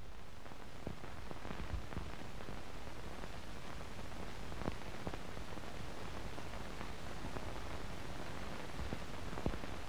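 Steady hiss with a few faint clicks and pops: the noise of an old film soundtrack with nothing else recorded on it.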